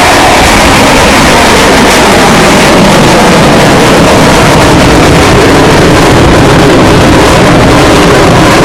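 Loud, steady jet noise from Blue Angels F/A-18 Hornets flying close by, so loud that the recording sits at full scale and the sound is distorted.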